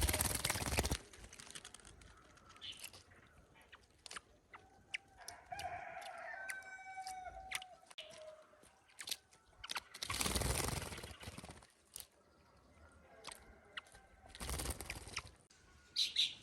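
A bird splashing as it bathes in a shallow, leaf-covered pool, in three short bouts. In between, a long drawn-out crowing call rings out, like a rooster's.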